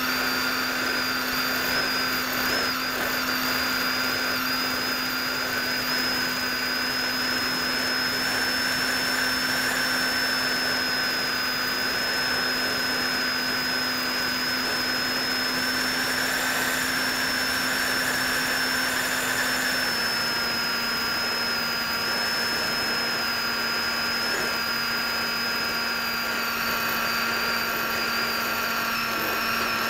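Electric motor and propeller of an AXN foam RC plane whining steadily, heard through the plane's own onboard camera. About two-thirds of the way through the motor slows a little and its pitch steps down.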